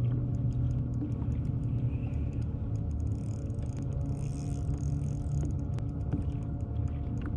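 Spinning fishing reel being cranked against a bent rod to bring in a hooked fish: a steady low rumble with scattered light clicks.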